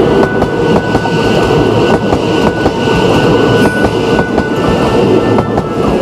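Odakyu 1000-series electric train passing close by: a loud, steady rail rumble with the clack of wheels over rail joints.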